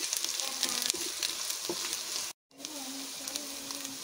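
Sliced onions and garlic sizzling as they sauté in a large non-stick pot, with scattered light clicks; the sound cuts out for a moment about two and a half seconds in.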